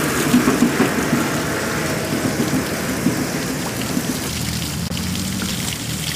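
Spray from a garden hose nozzle hitting mud and debris on a wire-mesh sifting screen: a steady, rain-like spatter as the mud is washed through the mesh.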